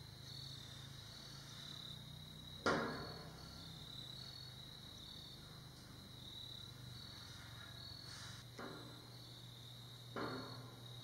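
Insects chirping in a steady, evenly repeating pattern, broken by three sharp knocks that ring out briefly: a loud one about three seconds in and two fainter ones near the end.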